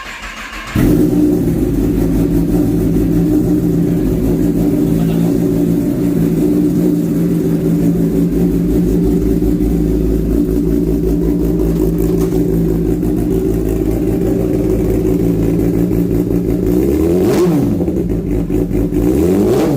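Kawasaki ZX-10R's inline-four engine with an Arrow aftermarket exhaust firing up about a second in and idling steadily. Near the end it is blipped twice, the pitch shooting up and dropping back each time.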